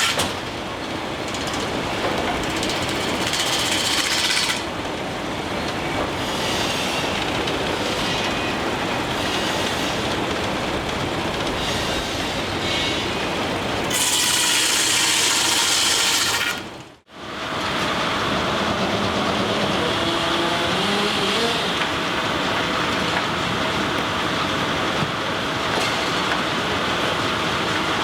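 Steam-powered sawmill running: steady mechanical clatter of the machinery, with louder, hissing, high-pitched stretches a few seconds in and again near the middle. The sound drops out for a moment about seventeen seconds in, then carries on.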